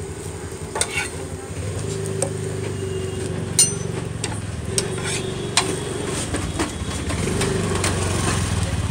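Metal spatula clinking and scraping against an iron frying pan while egg toast fries, with sharp taps, the loudest about three and a half seconds in. A low engine drone runs underneath from about two seconds in.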